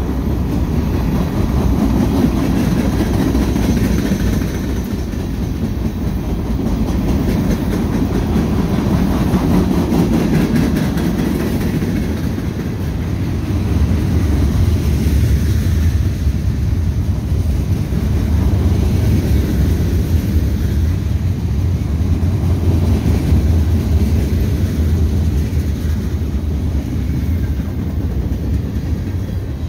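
Freight cars of a CSX freight train rolling past close by, covered hoppers and then open hoppers: a steady, loud rumble of steel wheels on rail that swells and eases as the cars go by.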